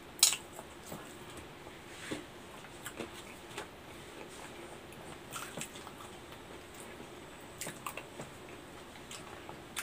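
Close-up mukbang eating of a soft-serve chocolate sundae from a plastic spoon: scattered short wet mouth smacks and slurps, and small clicks of the spoon, the sharpest one right at the start.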